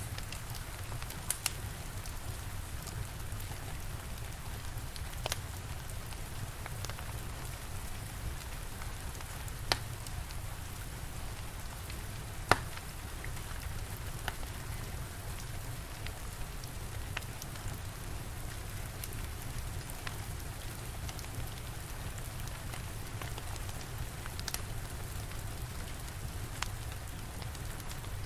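Steady rain falling, with a low rumble underneath, and a crackling fire giving a handful of sharp, scattered pops, the loudest about halfway through.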